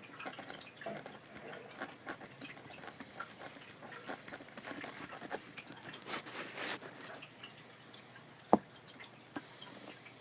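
A pen scratching and tapping, with a run of small scrapes and ticks for about seven seconds and a single sharp click about eight and a half seconds in, the loudest sound.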